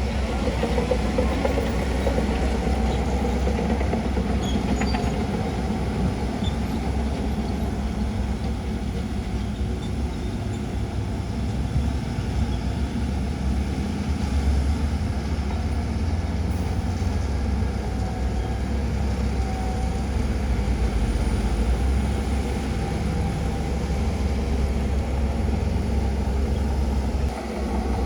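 Shantui DH17C2 bulldozer's diesel engine running steadily under load as it pushes sand fill, with faint squeaks and clinks and a short dip in level near the end.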